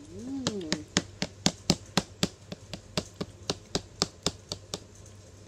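Sharp, even tapping, about four taps a second, which stops near the end. A short hum that rises and falls is heard in the first second.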